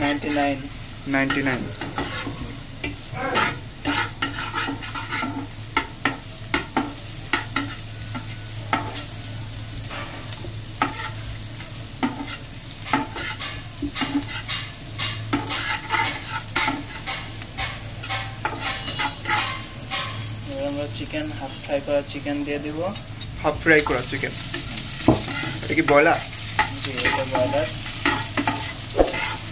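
Metal spatula stirring and scraping chopped onions and green chillies frying in oil in a nonstick pan: repeated sharp clacks of the spatula on the pan over a steady sizzle.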